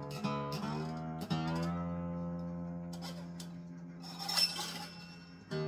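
Acoustic guitar with new strings being tuned: single strings plucked a few times, then one note left to ring and slowly fade. A brief scratchy noise comes about four seconds in.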